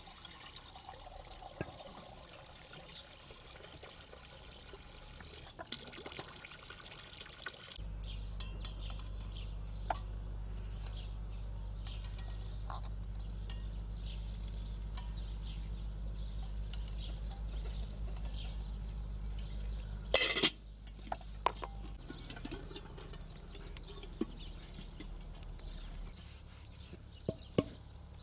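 Water running from a garden hose into a metal pot, a steady splashing hiss, which stops about eight seconds in. A low steady hum with scattered light clicks follows, broken by one loud sharp clatter about twenty seconds in.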